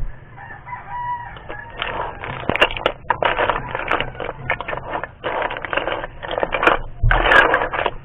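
Chickens clucking and a rooster crowing nearby, over sharp clicks and scrapes of a metal ladle stirring spider conch shells in a wok.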